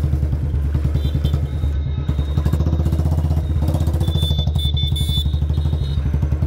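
Royal Enfield Bullet 350's single-cylinder four-stroke engine running at low revs in slow traffic, a steady, rapid, even beat.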